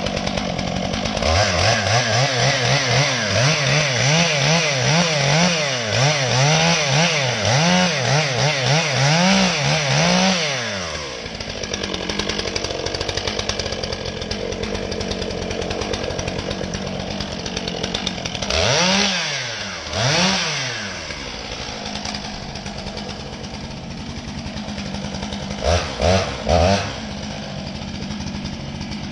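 Two-stroke chainsaw cutting at the base of a tree trunk, its engine pitch rising and falling again and again for about ten seconds. It then drops to idle, with two revs partway through and three short blips near the end.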